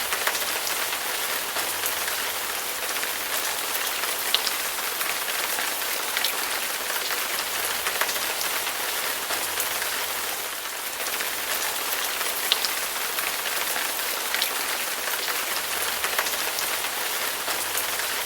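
Steady rain falling: an even hiss with a few sharper individual drops ticking now and then.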